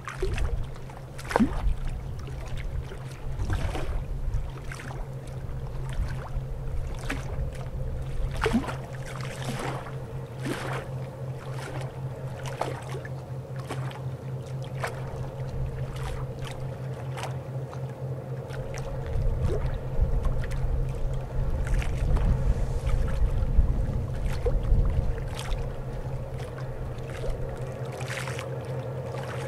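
Tugboat diesel engine droning steadily as it pushes a barge, with wind gusts rumbling on the microphone, heaviest in the second half, and scattered sharp clicks.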